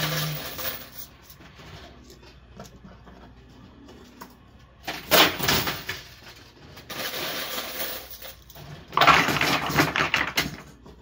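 Quarters and plastic poker chips clattering inside an arcade coin pusher machine. Small clicks of coins dropping come first, then louder stretches of clinking clatter about five seconds in and again near nine seconds.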